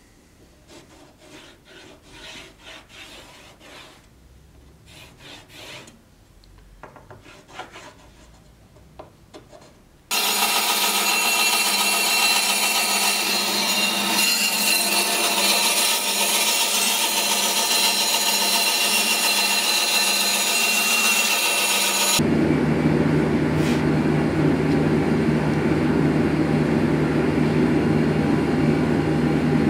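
Quiet scraping and handling of wood and tools, then a band saw comes in suddenly about ten seconds in, running steadily with a low hum as it rips a thin wooden strip. About twelve seconds later the sound switches abruptly to a different loud, steady machine drone.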